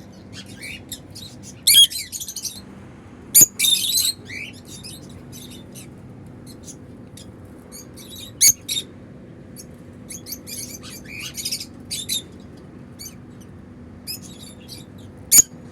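African lovebirds chirping: a scatter of short, high, shrill calls, with a few louder sharp bursts of several birds calling at once.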